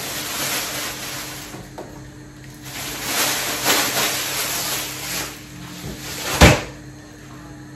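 Kitchen work noise: two stretches of rushing, hissing noise, then a single sharp knock about six and a half seconds in.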